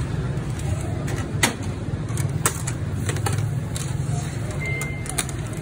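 Metal barbecue skewers clinking against each other and the grill's edge as they are turned over a charcoal grill: a handful of sharp clicks, the loudest about a second and a half in, over a steady low rumble.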